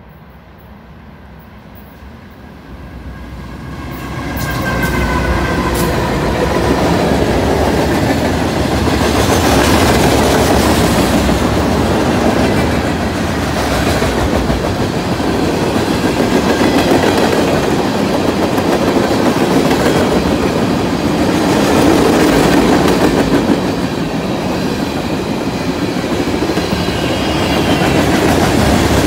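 Freight train led by three GE AC44C6M diesel-electric locomotives swelling in loudness over the first few seconds as it comes up and the locomotives pass. After that comes the steady rumble of a long string of tank cars and covered hoppers rolling by, with wheels clacking over the track.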